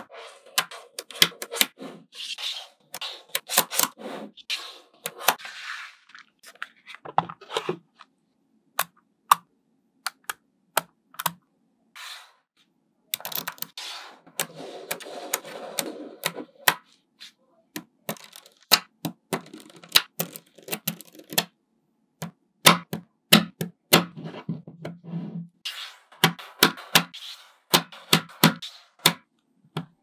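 Small magnetic balls clicking together as they are pressed into place by hand, in irregular sharp clicks with a few stretches of denser rattling.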